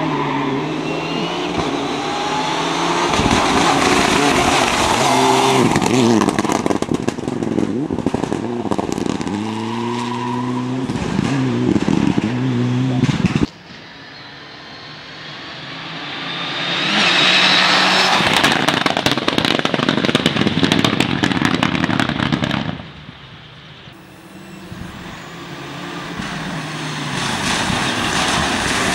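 Mitsubishi Lancer Evolution IX rally car engine revving hard and shifting up and down through the gears at competition pace. About halfway through, the sound drops off abruptly, then the engine revs up again.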